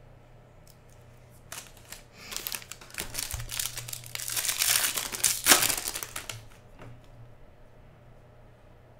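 Foil trading-card pack wrapper crinkling as it is pulled open by hand. The crackle starts about a second and a half in, is loudest about halfway through, and dies away near the end.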